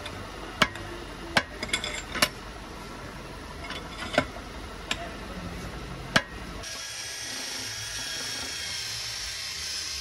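A hammer knocking on a steel drift, irregular sharp metal strikes about eight times, pressing a rubber bushing into a Mercedes W140 front control arm held in a bench vise. In the last few seconds a steady, even, high-pitched sound takes over.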